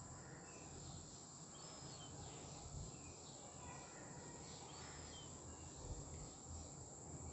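Faint background hiss with scattered short, high chirps and a few soft low bumps.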